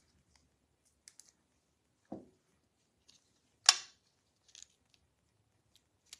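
Scattered small clicks and taps of fingers handling a paper die-cut rose and foam adhesive dimensionals and pressing it onto a card, with a soft knock about two seconds in and one sharper click a little past halfway.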